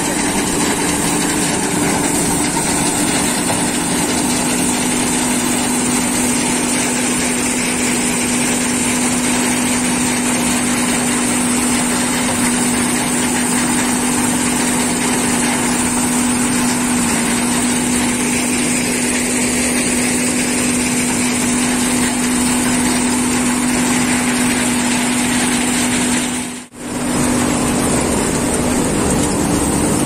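John Deere combine harvester running steadily, its engine and threshing works droning while threshing hand-fed cut mustard plants. Near the end the sound drops out for a moment.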